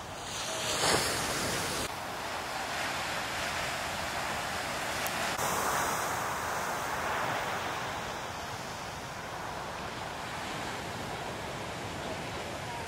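Heavy shorebreak surf: big waves breaking and washing up the beach, with a loud crash about a second in and another swell of surf noise around six seconds.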